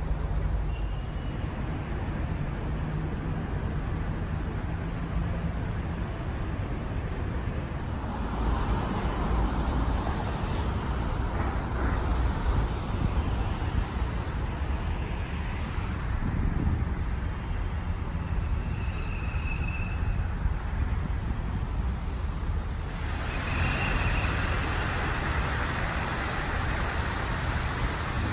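Steady vehicle and traffic noise with a low rumble, changing character abruptly twice.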